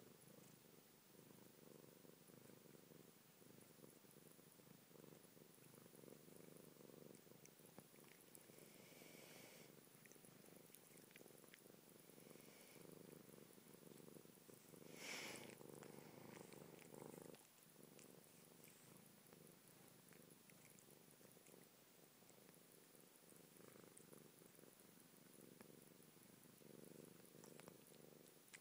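A British Shorthair cat purring steadily and faintly. About halfway through there is a brief, louder hissy noise.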